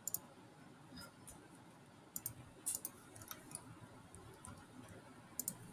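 Faint computer mouse clicks, several at uneven intervals with two in quick succession near the end.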